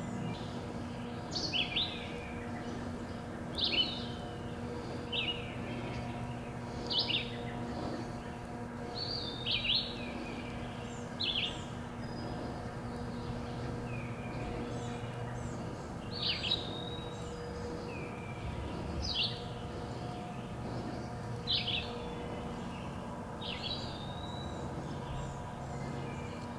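A songbird singing short, sharp high phrases every two seconds or so, with a pause of a few seconds midway, over a steady low background hum.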